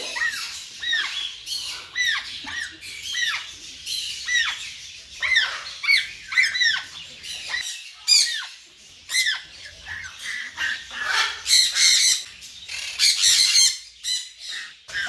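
African grey parrot chicks squawking, short arched calls about twice a second, with a denser run of harsher, overlapping squawks about three-quarters of the way through.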